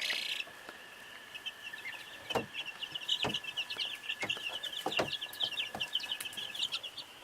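A brood of young chicks and turkey poults peeping together, a dense run of short high cheeps. A few sharp knocks sound over the peeping.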